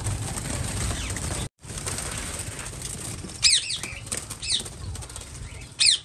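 Diamond doves flapping their wings as they flutter up inside an aviary, with the shade net rustling. The sound cuts off suddenly about a second and a half in. Later come a few short, high-pitched bird calls, each a quick falling squeak.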